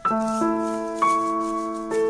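Background music: sustained keyboard-like notes, a new one struck every half second to second, over a light shaker rhythm.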